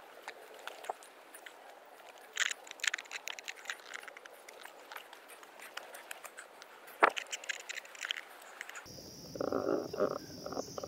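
Footsteps on a dirt mountain trail: irregular crunches, scrapes and crackles underfoot, with one sharper snap about seven seconds in. Near the end a steady high insect buzz joins in.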